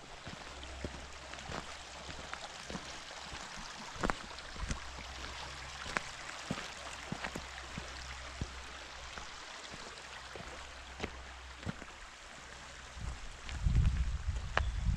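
A creek running, a steady even water noise, with scattered sharp clicks. A louder low rumble comes in near the end.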